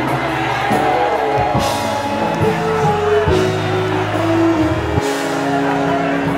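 Live gospel worship music: a band plays held chords over a moving bass line, with a few drum hits and faint singing.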